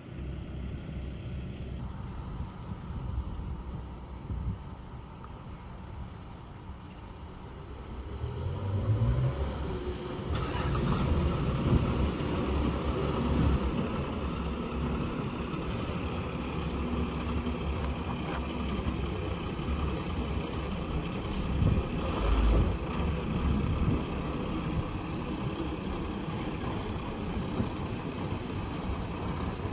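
1991 Blue Bird school bus's Cummins diesel engine running, quieter at first and growing louder about eight seconds in, then staying louder, with a few brief sharp sounds along the way.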